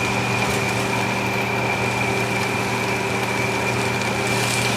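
Steady mechanical hum with a constant high whine over an even hiss, holding the same level throughout.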